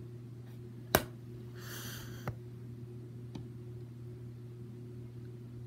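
A sharp click about a second in, then a brief rustle and a second, softer click, from objects being handled close to the microphone, over a steady low hum.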